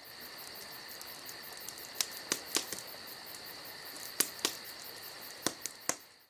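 Crickets chirping steadily, with about seven sharp clicks scattered through the middle. The sound fades in and fades out again.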